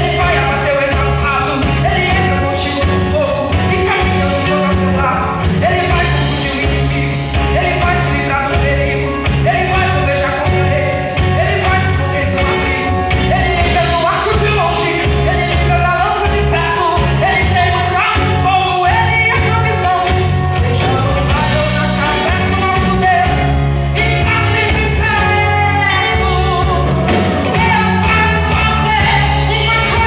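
A live church band playing a gospel worship song: a woman singing lead through a microphone over drum kit, bass, electric and acoustic guitars and keyboard, loud and without a break.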